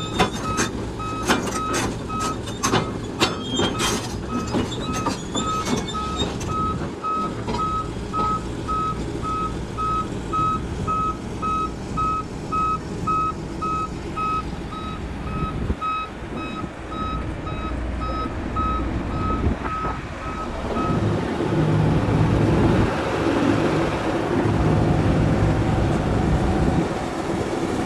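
A heavy machine's reversing alarm beeping about twice a second over a diesel engine running, with sharp metallic clanks in the first few seconds. Near the end the beeping stops and the engine grows louder.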